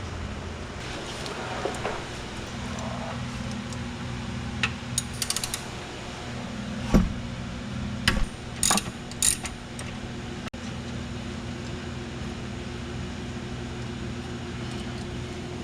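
Metal hand tools clicking and clanking on car parts, in scattered knocks with the loudest about halfway through and a quick cluster just after, over a steady background hum.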